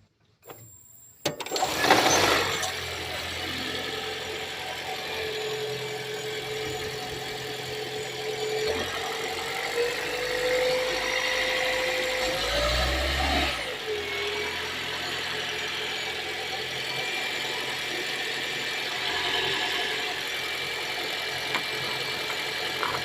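Car engine starting about a second in and then running steadily, with a brief rise and fall in pitch about thirteen seconds in. The owner calls it a bad sound.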